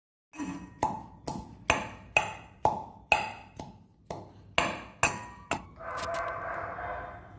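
Pestle pounding leaves in a mortar: about a dozen sharp, ringing strikes roughly every half second. Near the end it gives way to a longer grinding scrape.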